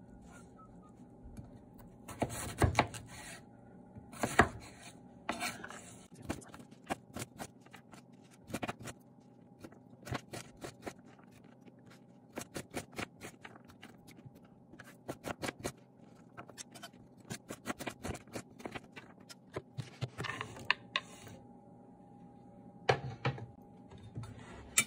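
Kitchen knife slicing through a sweet potato on a wooden cutting board: irregular taps of the blade on the board with scraping strokes between them. A faint steady hum runs underneath.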